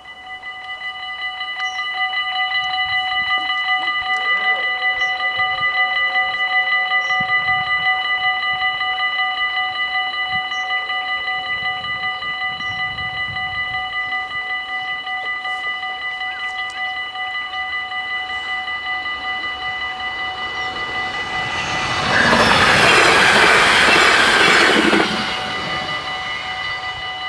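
Electronic level-crossing warning bells ringing rapidly and steadily as the crossing activates. About 22 seconds in, a Stadler GTW electric multiple unit passes over the crossing with a loud rush of wheel and running noise for about three seconds, while the bells keep ringing.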